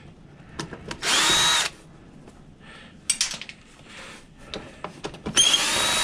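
Cordless drill/driver backing screws out of a desk fan's motor housing in two short runs. Each run's whine rises as the motor spins up, then holds steady. A few clicks and rattles come between the runs.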